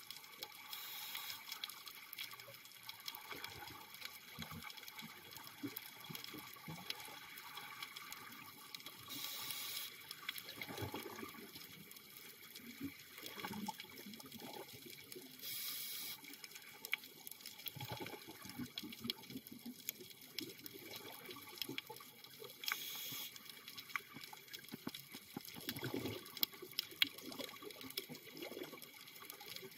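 Scuba diver breathing underwater through a regulator: a hissing, bubbling burst about every seven seconds as the breath is drawn and exhaled bubbles rise, with gurgles between breaths and a faint crackling in the background.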